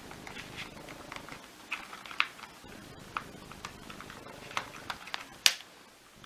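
Scattered light clicks and taps of plastic vacuum floor-head parts being handled during disassembly, with one sharper knock about five and a half seconds in.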